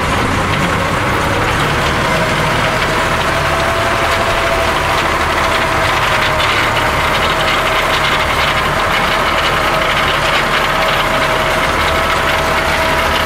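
Massey Ferguson tractor running steadily while driving a rear-mounted rotary tiller through the soil, with a steady high whine over the engine.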